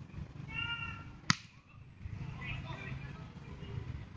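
Open-air ambience at a football pitch: wind rumbling on the microphone, a brief high call about half a second in, a single sharp click a little over a second in, and faint distant voices in the second half.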